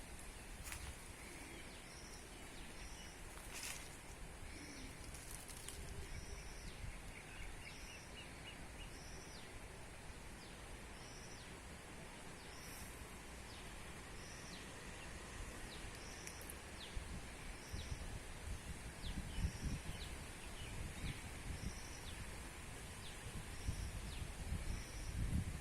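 A bird repeating the same short, high call with a quick falling tail, roughly once every second or two, over a steady outdoor hiss. A low rumbling noise grows louder in the last third.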